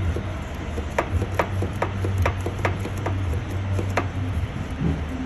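Sharp metallic clicks, about two a second and somewhat uneven, as a truck's brake slack adjuster is turned to back off the brakes, over a steady low hum.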